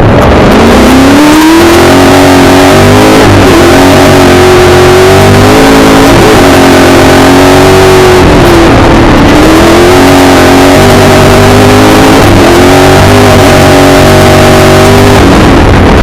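The 5-litre V8 of a Milner R5 off-road racing car, heard from inside the cabin, revving hard, its pitch rising and dipping again and again with throttle and gear changes and dropping away near the end. Very loud, over constant rough road and tyre noise.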